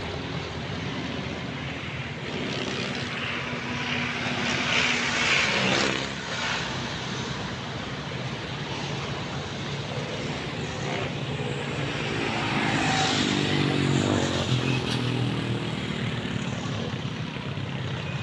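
Road traffic: vehicle engines and tyre noise. It swells twice, about four to six seconds in and again around twelve to fifteen seconds in, the second time with an engine note that shifts in pitch.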